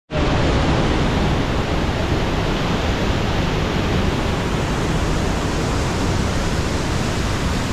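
Loud, steady rush of a waterfall, starting abruptly at the beginning and holding even throughout.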